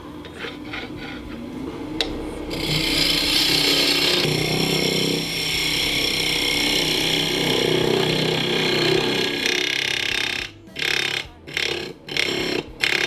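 A power tool cutting into ironwood around snapped-off faceplate screws: it runs steadily for several seconds, then comes in short bursts near the end.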